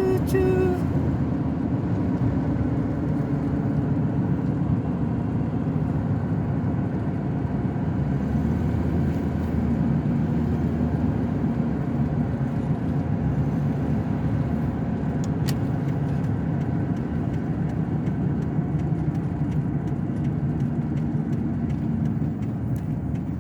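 Pickup truck driving along the road, heard from inside the cab: a steady low rumble of engine and road noise.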